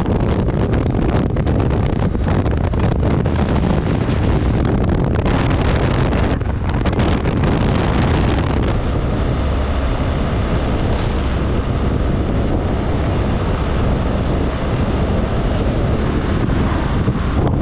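Wind rushing over the microphone while a BMW R1200GS is ridden at road speed, its boxer-twin engine and tyre noise running steadily beneath the wind.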